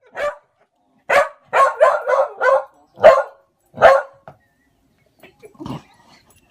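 A dog barking, about eight sharp barks in quick succession over the first four seconds, the last two the loudest.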